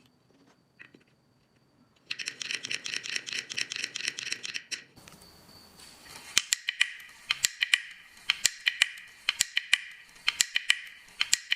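Wooden crank-driven 'anxious hand' mechanical toy working: its wooden parts clatter in a fast run of small taps starting about two seconds in. After a brief pause, sharper, louder wooden taps follow in quick irregular groups.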